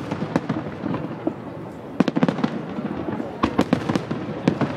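Fireworks bursting and crackling in rapid clusters of sharp bangs, thickest about two seconds in and again about three and a half seconds in.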